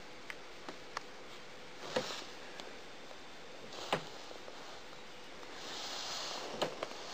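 A corn snake shifting over wood-chip bedding: faint scattered clicks and rustles of the chips, a few sharper ticks, and a soft breathy hiss about six seconds in.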